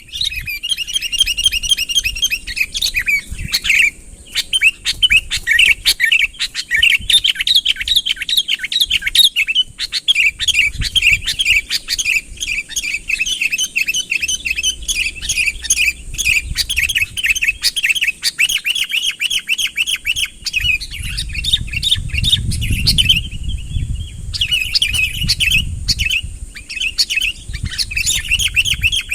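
Sooty-headed bulbul (kutilang) singing vigorously, an unbroken run of rapid chirping notes with a brief pause about two-thirds of the way through. It is the loud, rival-calling song used to lure other bulbuls in.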